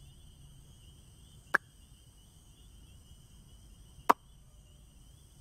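Faint, steady cricket chirring as night ambience, broken by two sharp clicks about two and a half seconds apart.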